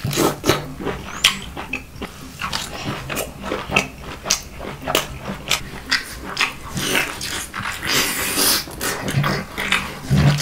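Noisy eating at close range: irregular wet smacks and crunchy clicks of food being chewed, with a stretch of hissing slurp-like noise about two thirds of the way through.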